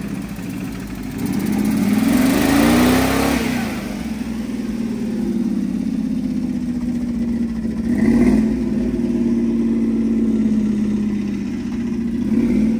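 Engine idling steadily and revved: one longer rev that climbs and falls back about a second in, then two short throttle blips, one past the middle and one near the end.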